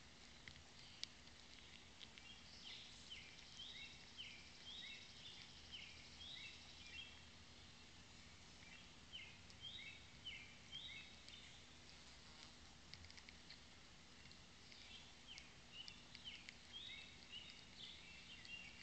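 Faint, distant birdsong in woodland: several phrases of short, quick high notes repeated, over a quiet outdoor hush, with an occasional small click.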